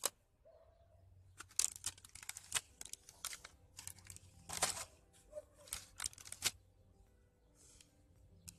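Kitchen handling noises during food preparation: irregular crinkling, rustling and scraping, a string of short strokes with a longer one about halfway through.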